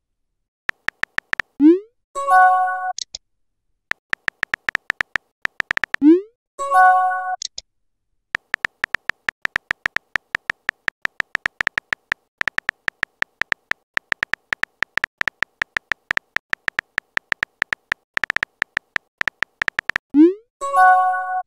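Smartphone chat sound effects: runs of rapid keyboard tap clicks as a message is typed, each followed by a quick rising pop and a short chime as the message is sent or arrives. This happens three times, with the longest typing run in the middle.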